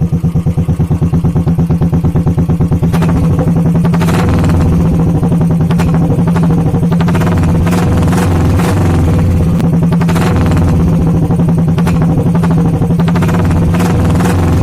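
1985 Royal Enfield Bullet 350 single-cylinder four-stroke engine running through a loud exhaust. Its separate beats are clear for about the first three seconds, then it gets louder and denser.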